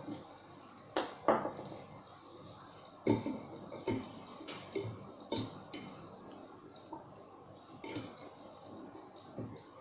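Screwdriver turning a screw into a wine bottle's cork: irregular metallic clicks and clinks of the tool against the screw and the glass bottle, the loudest about a second in and again about three seconds in.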